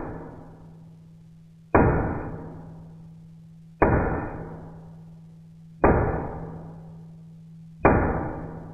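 Small hammer tapping the end of a steel toy-car axle, peening it into a mushroom head that holds the wheel on. The four light, even strikes come about every two seconds, each ringing out slowly, over a steady low hum.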